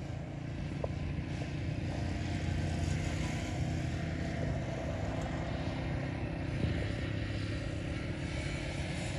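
Steady low drone of an engine running somewhere off, with one small click about a second in.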